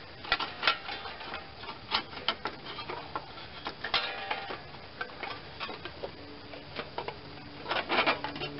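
Irregular light clicks, taps and rubbing of hands working around the spark plug wire and boot on a small twin-cylinder engine, with a few sharper clicks about half a second in and near the end.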